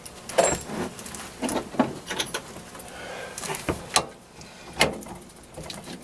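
Metal clinks and knocks from hands handling a lathe's quick-change tool post and compound with a wrench: a run of sharp taps spread over several seconds.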